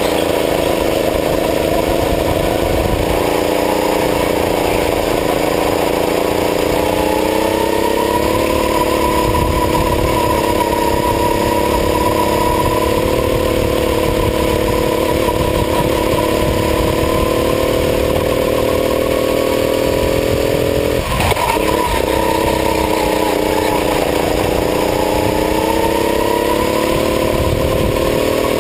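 Racing go-kart engine heard from on board at speed, its revs rising and falling through the corners, with a brief sharp drop about 21 seconds in before it picks up again.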